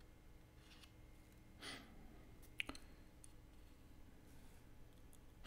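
Near silence: room tone, with one soft exhale about a second and a half in and a faint click about a second later.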